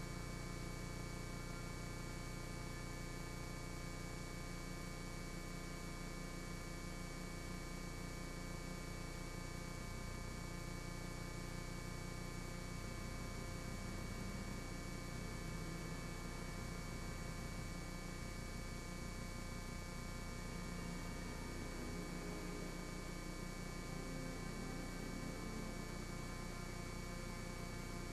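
Steady electrical hum holding a fixed set of tones at an unchanging level.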